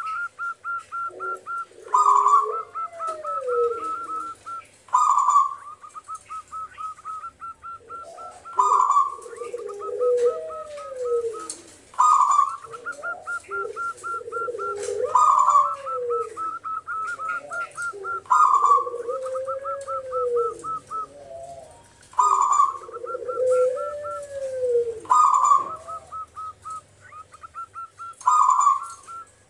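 Zebra dove singing its cooing song, a phrase repeated about every three seconds. Each phrase is a loud opening note, then a rapid stuttering trill, with a lower arching coo.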